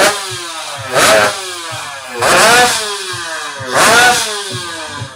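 Two-stroke underbone drag bike engine revved in four sharp throttle blips, its pitch falling back between each.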